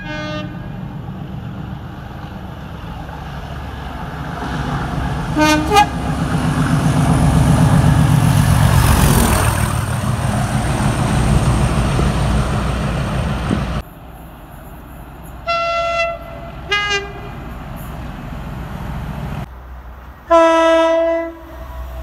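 Train horns sounded in short blasts by trains approaching a station. A short horn blast, then a locomotive passing close by with a loud rumble and a brief horn note. Then two quick toots and, near the end, a louder horn blast lasting about a second.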